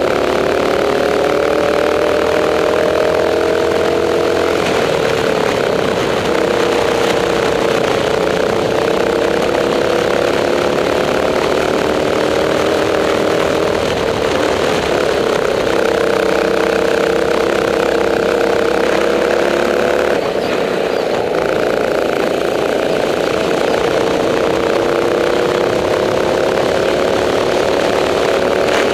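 Kart engine heard from the driver's seat, running hard at racing speed. Its pitch climbs slowly along the straights and drops back sharply three times as the driver lifts off for corners.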